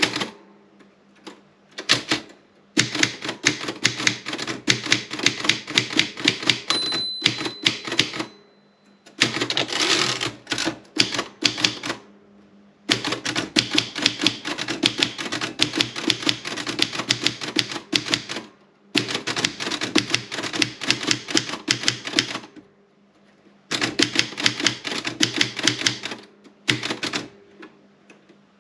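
Erika 30 typewriter being typed on, its keys striking in quick runs of keystrokes broken by short pauses, with a brief ringing tone about seven seconds in.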